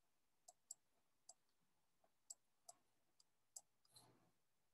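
Near silence with faint, irregular clicks, about seven of them spread over the few seconds.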